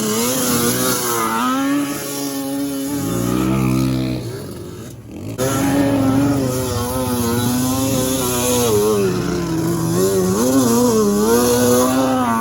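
Dirt bike engine being ridden, its pitch rising and falling again and again as the throttle is worked. The sound breaks off briefly about five seconds in, then the engine carries on.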